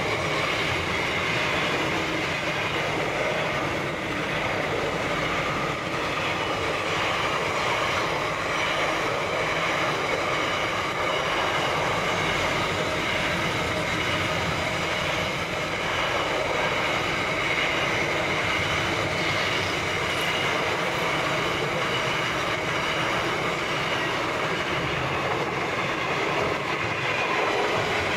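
Container wagons of a long freight train rolling steadily past at close range, their wheels running on the rails in a continuous rolling noise with a thin high ringing tone running through it.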